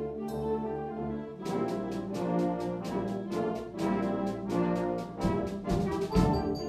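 Concert band music, brass-led: held brass chords, then from about a second and a half in, fast, evenly repeated accented hits across the band, with two deep low hits near the end.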